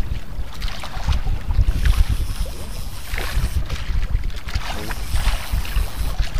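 Wind buffeting the microphone in an uneven low rumble, with water slapping against the hull of an outrigger fishing boat at sea.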